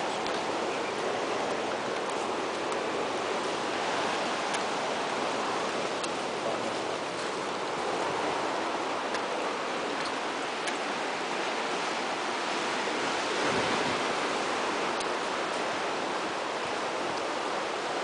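Steady rushing of ocean surf breaking on the beach below, with faint scattered clicks of footsteps on the dry-leaf trail.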